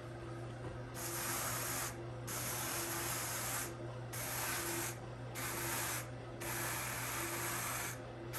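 Wooden burnishing brush rubbing over wool fibre on a drum carder's large drum, in about five long strokes of roughly a second each with short pauses between, packing the fibre down into the drum cloth.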